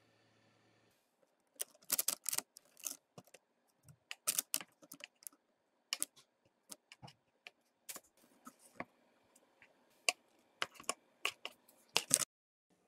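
Metal kitchen tongs clicking and tapping against the tray in quick, irregular clusters of sharp clicks as baked chicken wings are picked up and turned over on the parchment.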